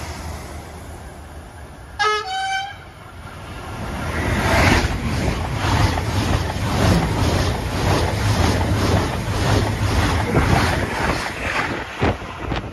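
Deutsche Bahn ICE high-speed train sounding a short two-note horn toot, high then low, about two seconds in, a typical driver's greeting to trainspotters. The train then passes close at speed, a loud rush of air and running gear with a rapid rhythmic clatter of wheels over the track.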